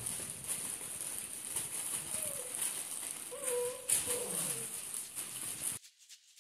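Bernese mountain dog puppies playing on newspaper: the paper rustles and crinkles as they wrestle and tug at it, and a few short whines come from a puppy about two and three and a half seconds in. The sound stops suddenly near the end.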